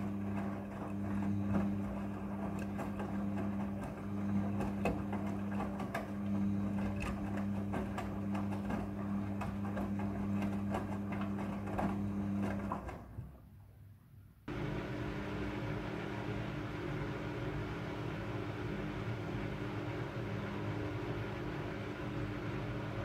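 Midea front-loading washing machine running its prewash: a steady motor hum with many light ticks and knocks from the turning drum. About 13 seconds in the sound drops away briefly, then comes back as a steadier hum with a hiss over it.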